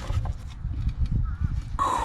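Light clicks and knocks from handling parts over a low rumble, then near the end a person's drawn-out exclamation begins.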